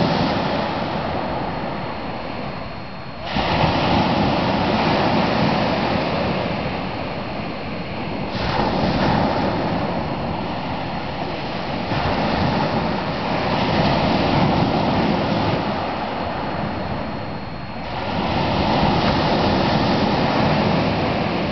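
Small sea waves breaking and washing onto a stony shore. The surf swells and eases every four to five seconds, with a sudden surge about three seconds in.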